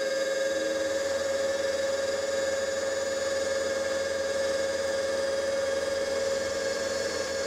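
Milling machine running with its cutter taking a side cut along a connecting rod held in the vise: a steady whine at one unchanging pitch.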